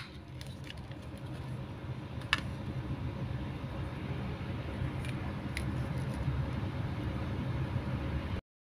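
Steady low background rumble that slowly grows louder and cuts off suddenly near the end, with a few light clicks of hard plastic toy fruit pieces being handled and set on a wooden table.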